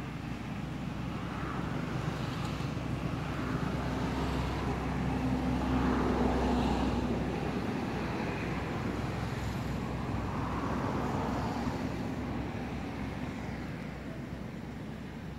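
A motor vehicle passing by: a low engine rumble and hum that grows louder, peaks about six seconds in, then fades away.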